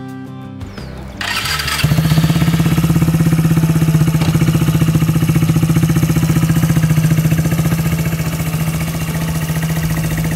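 Suzuki GZ150's single-cylinder four-stroke engine cranked briefly about a second in, catching just under two seconds in and then idling steadily with an even, fast pulsing beat.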